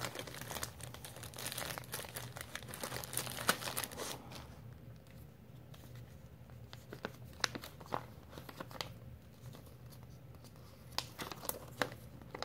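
Paper rustling and crinkling as an instruction leaflet is handled and leafed through. It is busiest in the first few seconds, then thins to scattered light crinkles and ticks.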